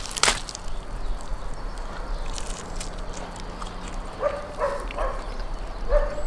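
Crackling and tearing of crisp roast lamb skin and bone being pulled apart at the start. Then a pet animal gives several short, high calls in a row over the second half.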